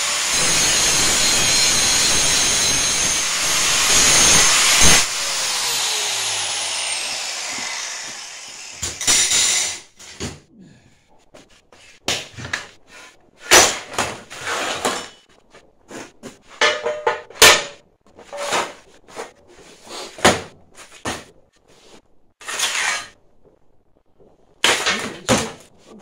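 Angle grinder grinding down welds on a welded steel frame, running steadily for about five seconds, then switched off and spinning down with a falling whine. After that, scattered knocks and clanks of steel and tools being handled on a workbench.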